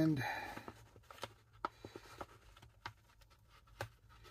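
Small tool-kit parts being handled by hand: a faint, irregular run of light clicks and taps, the loudest a little before the end.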